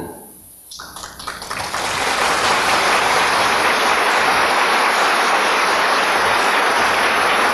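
Audience applauding: a few scattered claps at first, quickly building into full, steady applause.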